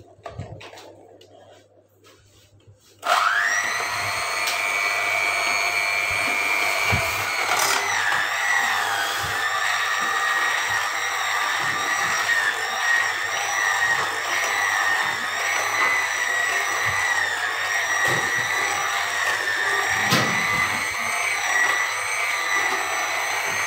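Electric hand mixer switched on about three seconds in and running with a steady whine, its beaters creaming butter and sugar until fluffy. Its pitch dips briefly about eight seconds in.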